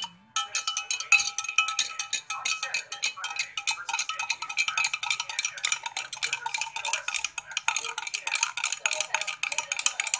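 A metal spoon stirring sugar into a herbal decoction to dissolve it, with rapid, steady clinks against the sides of the container.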